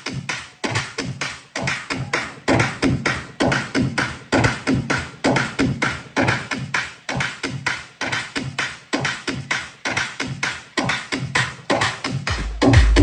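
Electronic DJ music played loud through a large sound system during a sound check: rapid percussive hits of about five a second, with heavy bass kicking in near the end.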